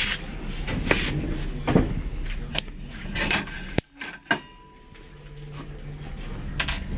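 Scattered knocks and clacks of hard objects being handled, with a sharp click just before four seconds in followed by a brief drop to quiet, then a low steady hum.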